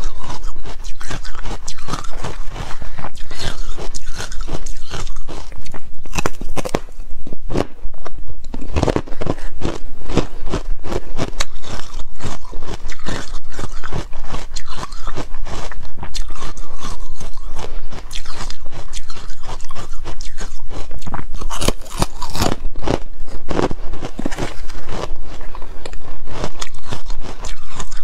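Close-miked biting and chewing of carbonated ice sticks coated in green powder: a dense, loud run of crisp crunches and crackles.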